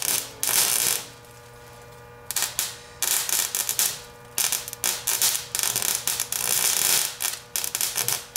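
High-voltage arc from a microwave oven transformer crackling and sputtering across wire ends in loud, irregular bursts, with a pause of about a second near the start.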